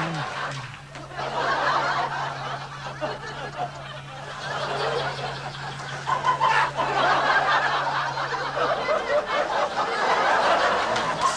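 People laughing and chuckling over a steady low hum; the hum stops near the end.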